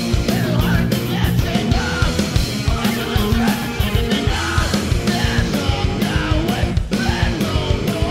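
Hardcore punk song playing: distorted electric guitars and bass over fast, dense drumming.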